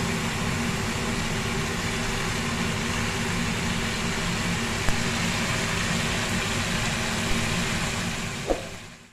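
Fish and tomatoes sizzling in a frying pan over a steady low hum, with a few light knocks of the spatula against the pan; the sound fades out near the end.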